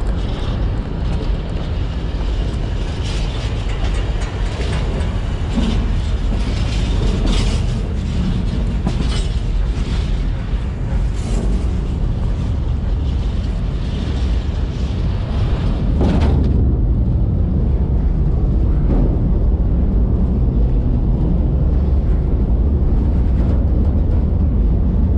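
A moving train: a heavy, steady rumble with frequent sharp knocks from the wagons. About two-thirds of the way through the sound turns duller and the rumble heavier.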